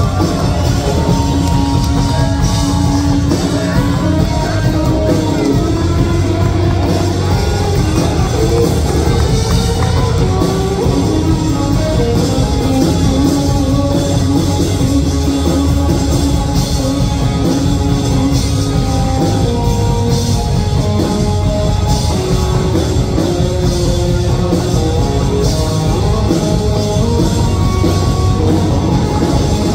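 Live country-rock band playing an instrumental passage: an electric guitar plays a lead line with bending notes over bass guitar and a drum kit.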